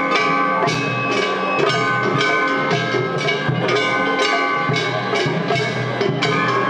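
Festival float hayashi music, with metal hand gongs (kane) struck about three times a second in a steady rhythm over taiko drums. The gongs leave a ringing metallic tone between strikes.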